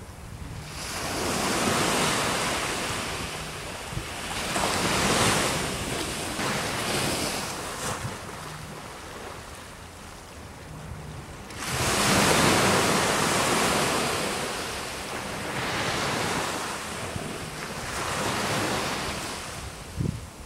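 Surf washing onto the shore in repeated swells, one rising sharply about twelve seconds in, with wind buffeting the microphone.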